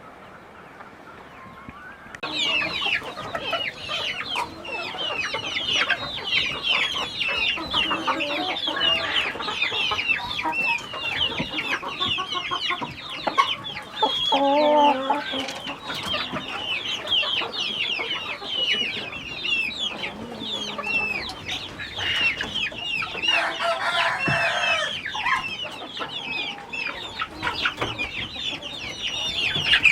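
A flock of chickens clucking and calling, many short high calls overlapping, coming in about two seconds in and carrying on throughout.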